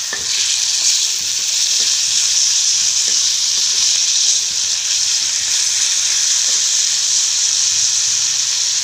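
Boneless chicken breast pieces, sliced onion and green chillies sizzling in hot oil in a karahi while being stir-fried with a spatula: a steady loud hiss with a few faint scrapes of the spatula.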